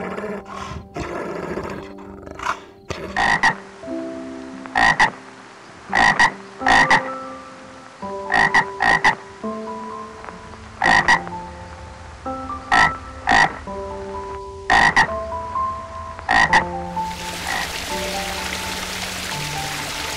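An animal's short, sharp calls, about a dozen at irregular intervals, some in quick pairs, over background music. A steady hiss like rain comes in near the end.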